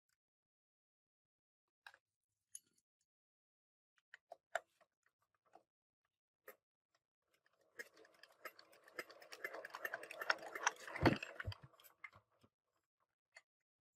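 Workshop handling noise: a few isolated light clicks, then about four seconds of dense rattling and clattering with one heavy thump near the middle of it.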